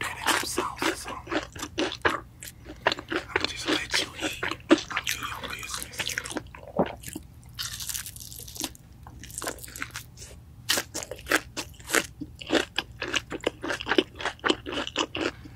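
Close-miked crunching and chewing of crispy fried chicken: many sharp crunches in quick succession. They thin out in the middle and come thick again in the last few seconds.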